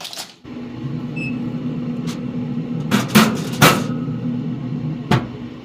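Steady hum of a Recteq pellet smoker running, with several sharp knocks and clanks, the loudest around the middle, as the covered chicken is put back in and the lid is handled.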